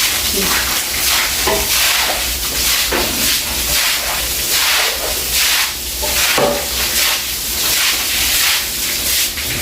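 Broom scrubbing a wet floor in repeated swishing strokes, about two a second.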